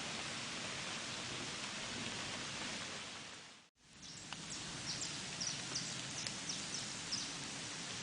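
Steady hiss of falling rain that fades briefly to silence a little before halfway and comes back. A bird then gives a quick run of short, high chirps over the rain.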